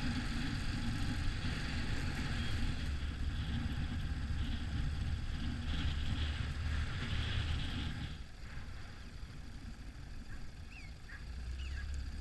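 Yamaha XT 600 single-cylinder motorcycle engine running steadily, falling away about eight seconds in. A few short bird calls follow near the end.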